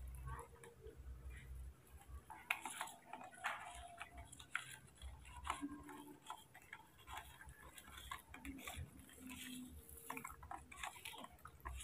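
Faint, irregular clicks and taps of thin plastic cups being handled as baby formula milk is mixed and poured from cup to cup.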